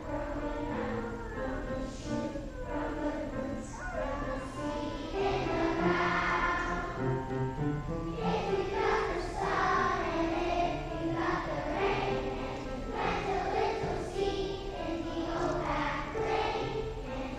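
A kindergarten class singing a song together as a children's choir.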